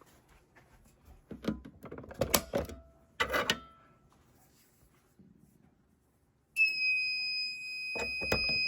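A few knocks and clatters, then about six and a half seconds in a fire alarm sounder comes on suddenly with a steady high-pitched tone that holds. Rapid clicking joins the tone near the end.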